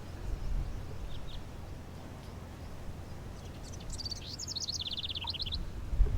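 A small songbird singing: a couple of short chirps about a second in, then a rapid trilled phrase of quick repeated high notes in the second half, over a steady low outdoor rumble.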